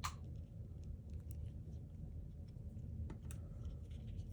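Small plastic clicks and handling ticks as a translucent plastic Force Lightning cuff is fitted onto a 3.75-inch action figure's wrist, with one sharp click at the start and another about three seconds in.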